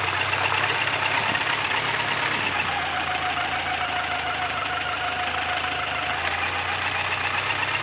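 An engine idling steadily, with an even, unchanging running sound.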